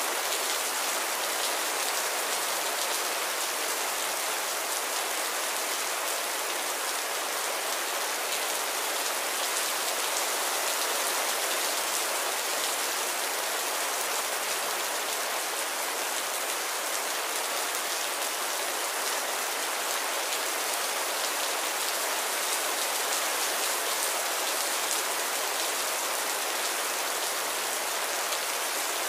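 Heavy rain falling steadily: a dense, even hiss with a fine patter of drops.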